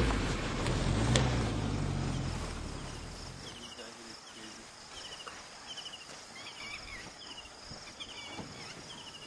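A low vehicle-engine rumble fading out over the first three seconds, then faint, regular high chirps of an insect, a little under two a second.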